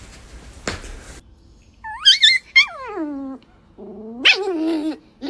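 Dog crying out: a high yelp about two seconds in that slides steeply down into a whine, then a second, lower drawn-out whining cry with a sharp high squeal in the middle.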